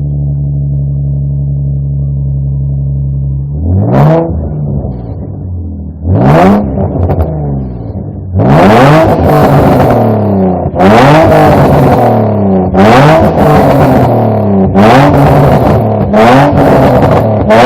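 Nissan 350Z's 3.5-litre V6 with test pipes in place of its catalytic converters: idling steadily, then revved in hard blips, first twice and then repeatedly from about eight seconds in. Very loud.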